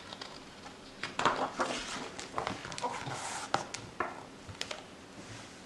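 A page of a hardcover picture book being turned and pressed flat by hand: a paper rustle with several soft clicks and taps, starting about a second in and dying away near the end.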